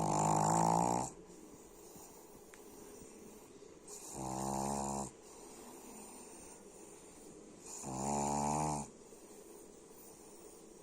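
Snoring in slow, even breaths: three long droning snores about four seconds apart, each lasting about a second, the first the loudest.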